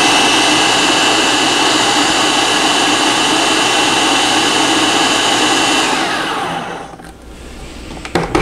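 Food processor motor running at full speed, blending thick hummus, with a steady high whine. About six seconds in it is switched off and winds down to a stop, its whine falling.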